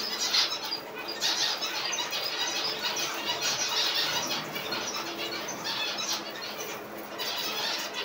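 A colony of zebra finches calling all together, a constant chatter of many short overlapping calls, with wingbeats of birds flying about.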